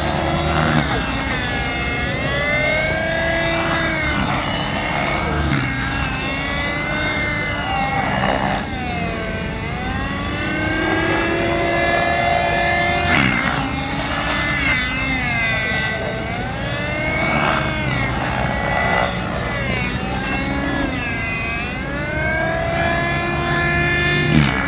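Nitro-engined radio-controlled helicopter flying aerobatics: its engine and rotor whine rises and falls in pitch every second or two as it flips and changes direction.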